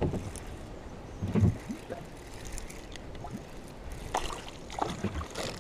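Handling noise and knocks in a small fishing boat while a hooked bass is played and brought in, with water moving at the hull. The loudest sound is a dull thump about a second and a half in.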